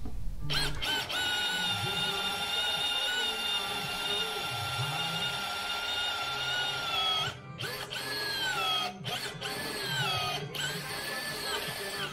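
Portable drill press with its motor whining steadily as the bit bores through thick steel plate under heavy feed pressure. From about seven seconds in, the whine drops in pitch and recovers several times, with brief breaks, as the bit is pushed hard into the cut.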